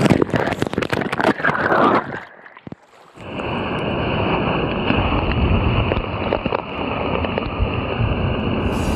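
Water rushing and splashing through an enclosed tube water slide as the rider reaches the exit, then a brief muffled lull about two seconds in. After that, a steady gush of water pouring from the slide's outlet into the pool.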